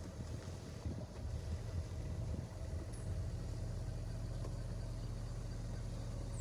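A motor vehicle's engine running at a steady speed, a low even hum.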